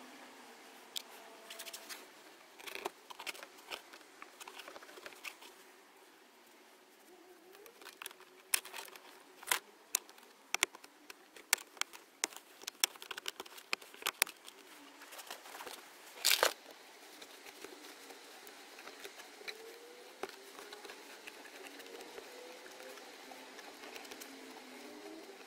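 Hands working on a Skoda Rapid's plastic centre-console trim around the handbrake and gear lever, tucking wiring in: scattered clicks and taps, thickest through the middle, with the loudest click about two-thirds of the way through.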